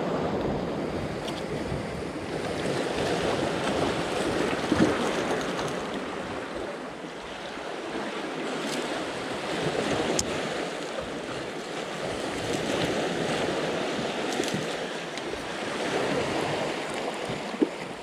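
Sea waves washing and breaking against the rocks of a breakwater, swelling and ebbing every few seconds, with a few faint clicks.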